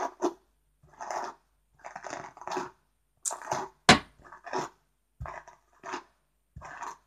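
A hairbrush dragged through long hair close to the microphone: a series of short rasping brush strokes, about one or two a second, with one sharp knock a little before halfway.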